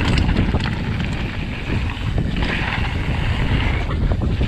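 Wind buffeting the microphone over the rumble and crunch of a hardtail mountain bike's tyres rolling fast over loose stone, with scattered clicks and rattles from stones and the bike.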